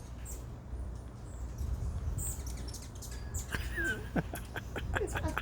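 Hummingbirds chipping with short, high-pitched chirps, growing busier about halfway through, over a steady low rumble.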